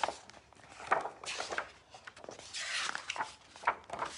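Pages of a hardcover picture book being turned and handled: paper rustling with several light taps and knocks, and a longer paper swish about two and a half seconds in.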